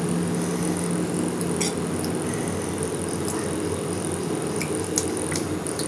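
Scattered soft clicks and taps of someone eating rice and fish curry by hand from a plate, over a steady low hum.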